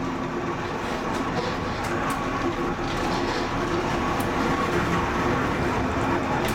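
Zecca–Righi funicular car running along its narrow-gauge track, heard from the driver's cab: a steady rolling rumble with a faint steady hum and a few light clicks.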